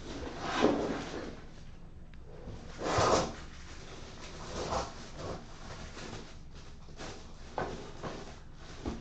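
A cardboard trading-card box and its packs being handled: a few short sliding and scraping noises, the loudest about three seconds in.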